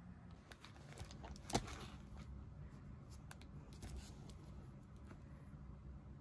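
Faint rustling and crinkling of plastic sleeves and packaging as small calendars are picked up and handled, with one sharper click about a second and a half in.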